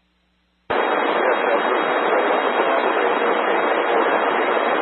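Amateur FM radio receiver on a repeater channel: silent with the squelch closed, then under a second in the squelch opens to a steady, loud rush of static hiss, a transmission carrying no voice.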